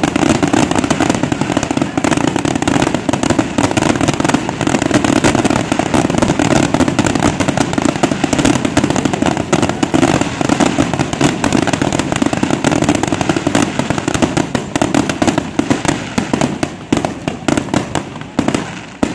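Aerial fireworks shells bursting in a dense, continuous barrage of bangs and crackle, thinning out near the end.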